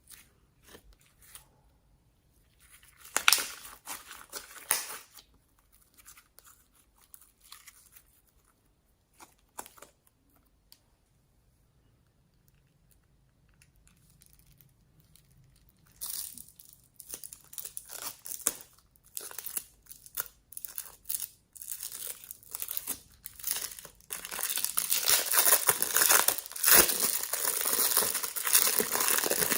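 Close-up crinkling and crackling from hands working slime-mixing materials. It is sparse at first, with one louder flurry a few seconds in, then grows into dense, loud crackling near the end.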